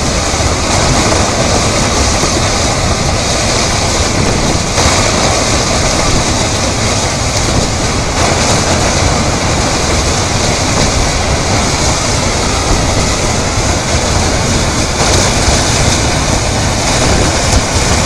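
Fast-flowing river water rushing, a steady loud noise with no let-up.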